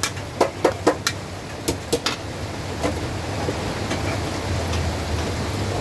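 Steady hiss of rain with a quick run of about seven sharp knocks in the first two seconds, then a couple of fainter ones.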